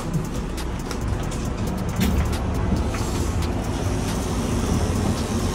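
Electric dog-grooming tool running with a steady motor hum against a golden retriever's thick coat, with a knock about two seconds in.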